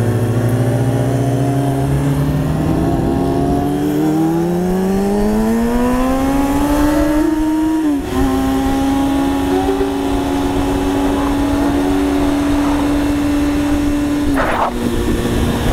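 Sport motorcycle engine accelerating, its pitch climbing steadily for about seven seconds; an upshift about eight seconds in drops the pitch, and it then runs at a steady cruise with wind rush, easing off slightly near the end.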